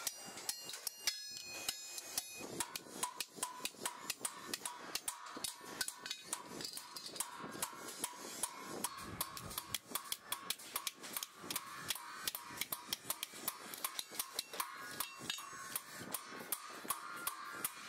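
Metal being struck repeatedly with a hammer: fast, somewhat irregular blows about three to four a second, each with a short metallic ring.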